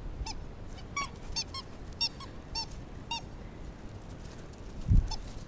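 Rubber squeaky toy squeaking in short, high chirps as a West Siberian Laika chews on it, about eight in quick succession over the first three seconds and one more near the end. A dull thump comes near the end.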